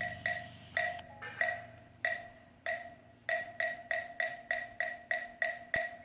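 A hollow wooden Buddhist temple percussion instrument struck again and again with a mallet. Each knock rings briefly at a clear pitch. The strokes come unevenly at first, with a pause about a second in, then quicken to about three a second.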